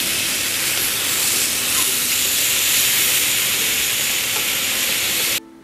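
Marinated chicken thighs sizzling loudly on a hot grill grate, a steady hiss that cuts off suddenly near the end as ukulele music comes in.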